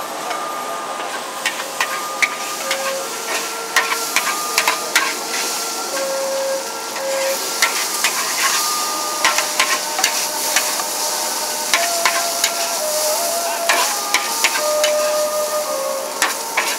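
Char kuey teow noodles stir-frying in a large wok: the metal spatula clanks and scrapes against the wok many times in an irregular run over a steady sizzle. Held tones that step in pitch every half second or so sound in the background.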